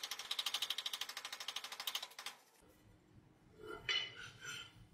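Power hammer striking a red-hot damascus steel billet in a fast, even run of blows, about eight a second, which stops a little over two seconds in. A faint, brief mechanical sound follows near the end.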